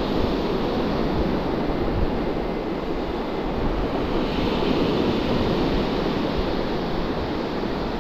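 Surf washing steadily onto a sandy beach, mixed with wind buffeting the microphone.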